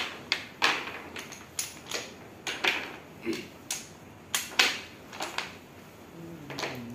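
Small wooden stacking blocks clicking and tapping against each other and the tabletop as they are pushed and pulled from a block tower: a string of sharp, irregular clicks.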